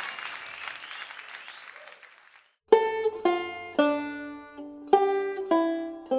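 Applause dying away, then after a short pause a plucked string instrument starts a slow melody of single ringing notes, about two a second.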